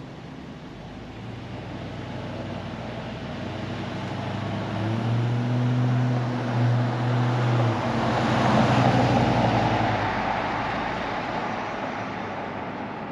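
LS V8 engine in a 1977 Ford F150 running, its note stepping up about five seconds in. Near eight seconds the engine note gives way to a broad rushing swell that peaks and slowly fades.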